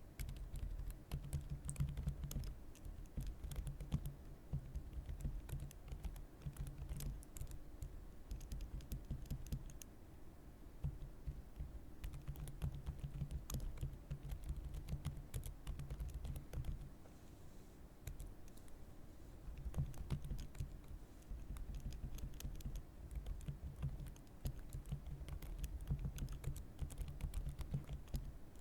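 Continuous typing on a computer keyboard: a fast run of key presses, each with a low thud, easing off briefly about ten seconds in and again near eighteen seconds.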